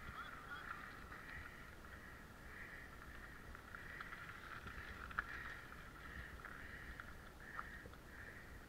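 Faint rolling noise of a mountain bike on a gravel track, swelling and fading about once a second, with scattered sharp clicks and knocks, the loudest about halfway through.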